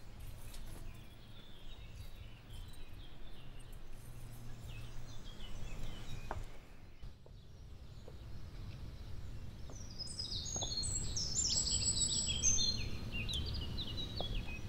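Outdoor ambience: a low steady rumble with songbirds chirping. From about ten seconds in, a bird sings louder, in quick runs of falling notes.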